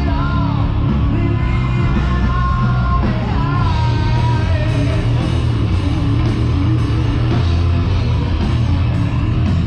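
Live rock band playing on an open-air stage, with singing over heavy, booming bass.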